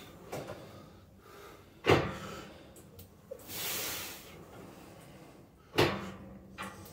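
Cable machine's weight stack clunking twice, about four seconds apart, with a breathy hiss between the clunks.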